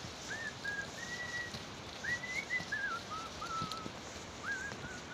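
Someone whistling a slow run of clear, gliding notes that mostly step down in pitch, with short gaps between phrases.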